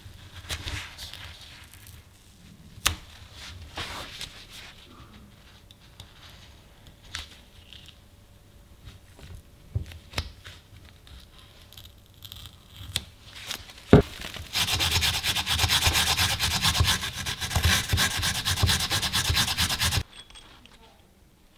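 Abrasive rubbing on the metal parts of an antique hand-cranked grinder. First comes light scraping with scattered small clicks, then a sharp knock about two-thirds of the way in. After that come several seconds of loud, fast rubbing that stops abruptly.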